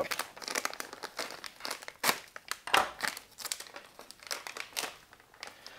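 Plastic-foil ration snack pouch crinkling as it is handled and pulled at by the fingers to tear it open. Irregular sharp crackles, the loudest about two seconds in and again just under a second later.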